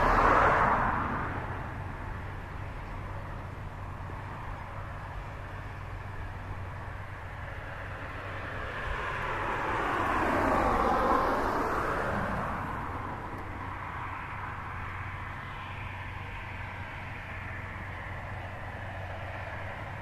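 John Deere 7530 tractor's six-cylinder diesel engine running steadily under load while ploughing, a low, even hum at a distance. A louder passing vehicle swells up and fades away around the middle, and another fades out in the first two seconds.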